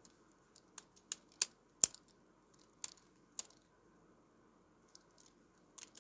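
Butterfly knife being flipped: about ten sharp, irregular clicks as the handles swing and strike, the loudest a little under two seconds in.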